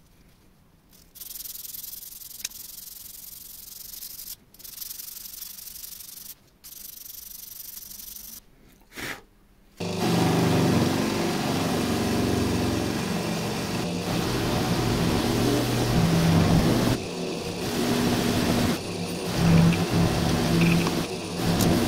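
Fine P600 wet-and-dry sandpaper rubbed against a small metal part in three long stretches with short pauses. About ten seconds in, a bench electric motor with a green cloth buffing wheel starts up, much louder, and runs steadily with a low hum as polishing compound and then the metal part are pressed against the spinning wheel.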